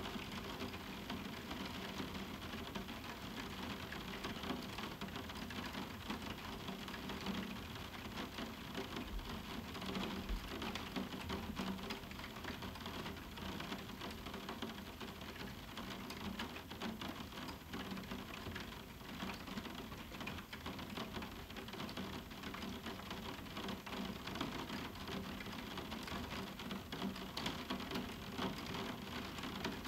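Moderate summer rain falling steadily on a roof window, a dense stream of small drop impacts with no thunder.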